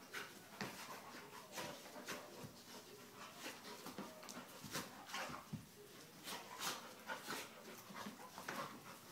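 Two dogs play-wrestling, breathing hard and scuffling at each other in a quick, irregular run of short sounds.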